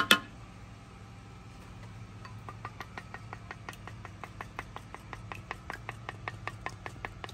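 Eggs being beaten with a wooden spoon in a small clay bowl: quick, even clicking taps against the bowl, about four to five a second, starting about two seconds in. A few sharp knocks come right at the start.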